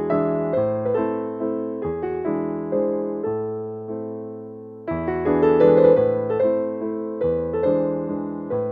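Background piano music: struck notes and chords dying away one after another. It fades to a low point just before five seconds in, then a fuller, louder passage begins.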